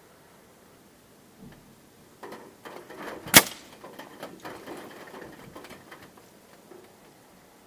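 A single shot from a Daystate Red Wolf .177 pre-charged pneumatic air rifle, a sharp crack about three and a half seconds in. Quieter clicks and rustles of handling come in the second before the shot and for a couple of seconds after it.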